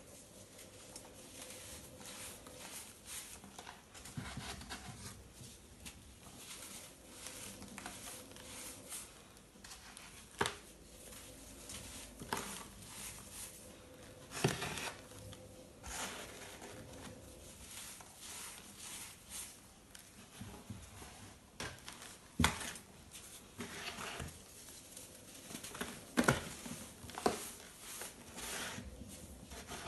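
A moulded block of dried, dyed baking soda being crushed and crumbled by hand: steady soft crunching and powdery crumbling, with several sharper crunches as chunks break apart.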